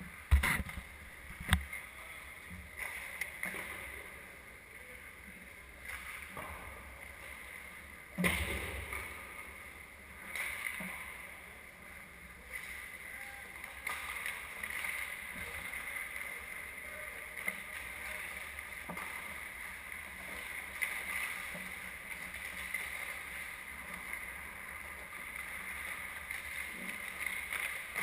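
Ice hockey rink sounds: skates scraping on the ice, broken by a few sharp knocks, the loudest just after the start and about eight seconds in.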